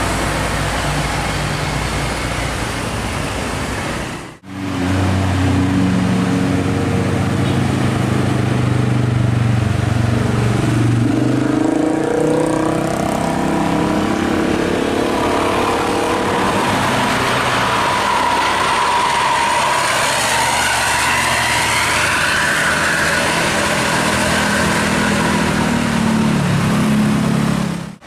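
Roadside traffic with a large vehicle's engine running as it passes, its pitch sliding down and up around the middle; a sudden cut to another shot about four seconds in.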